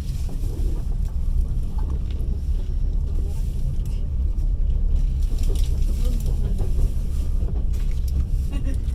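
Passenger train running along the line, heard inside the carriage: a steady low rumble of wheels and running gear, with occasional clacks of the wheels over the track.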